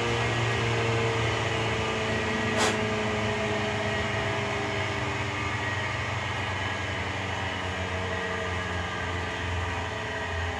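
Electric Cramer grain mill running steadily, grinding grain into fine meal: a continuous motor hum with a faint whine over a hiss of grinding. A single sharp click about two and a half seconds in.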